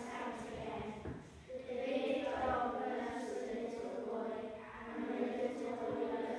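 A class of young children chanting together in unison, many voices moving in a sing-song recitation, in phrases with short breaks between them.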